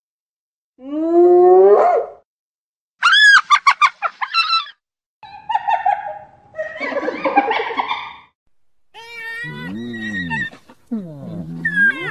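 Hyena calls in short separate bursts with silent gaps between them. First comes a call rising in pitch, then a quick high stuttering giggle, a rougher noisy stretch, and wavering calls near the end.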